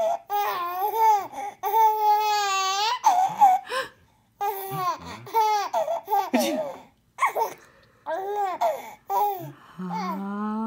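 A small child laughing hard in repeated high-pitched fits, squeals and giggles, with a lower voice rising in pitch near the end.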